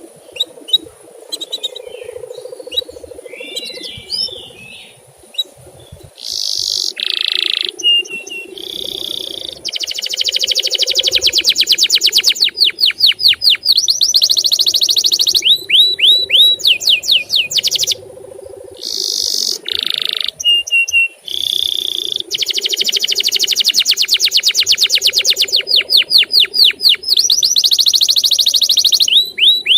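Male canary singing: scattered chirps at first, then from about ten seconds in long, fast trills of rapidly repeated notes mixed with runs of sweeping chirps, broken by short pauses.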